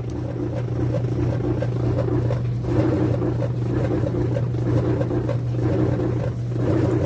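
Clothes dryer running with an abnormal noise: a steady low hum under a rougher, pulsing noise that swells and fades twice, a few seconds apart. The owner finds it "just not good at all".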